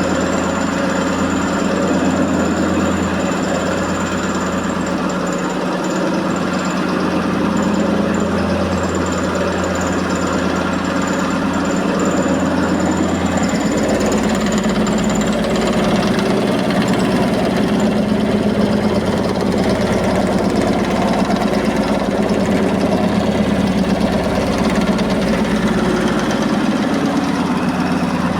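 Electrolux 15 kg commercial washing machine spinning with a very unbalanced load: a steady loud mechanical hum and vibration, with a high thin whine that fades out about halfway through.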